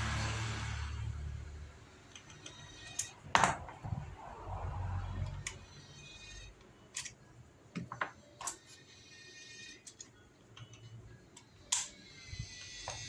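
Scattered sharp clicks and light handling knocks, then near the end an electric hair clipper switches on and runs with a steady buzz.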